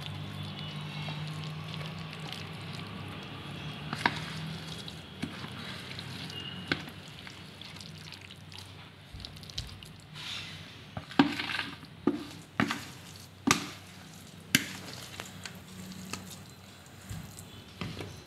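Spoon scraping thick, oily mango pickle out of a plastic container into a steel bowl: wet scraping and squishing, with a low hum under the first few seconds. In the second half come sharp knocks, several in quick succession, as the spoon strikes the container and the bowl.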